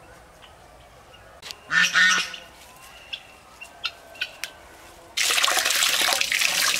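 A waterfowl honks once, about two seconds in, followed by a few short high clicks. From about five seconds in, water runs from a tap over hands rinsing freshly picked leaves and splashes into a bowl below.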